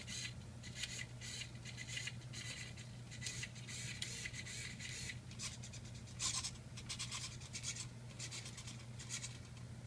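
Small hobby servos in an animatronic bird's head buzzing and grinding in short, irregular starts and stops as the head and beak move in jumpy steps, over a steady low hum. The servos are pretty noisy and move slowly.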